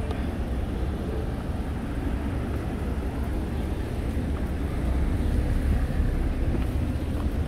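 Outdoor street ambience made of a steady, flickering low rumble, mostly wind buffeting the microphone, with no distinct event standing out. It swells a little about five seconds in.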